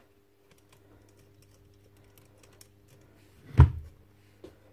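Light scattered clicks and taps of tools and metal parts being handled during disassembly, with one loud knock a little past halfway. A faint steady hum runs underneath.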